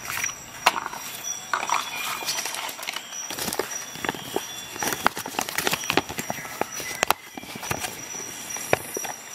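Paper instruction leaflet being unfolded and handled, crackling and rustling in irregular snaps and crinkles. A thin steady high tone runs underneath.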